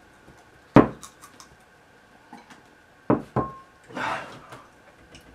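Knocks of a ceramic bowl and hands on a wooden table: one sharp knock about a second in, two duller thumps close together about three seconds in, then a short rough breath.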